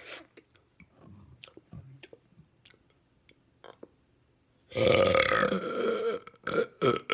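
A person burping: faint clicks for the first few seconds, then a loud, drawn-out burp about five seconds in, followed by two or three short burps near the end.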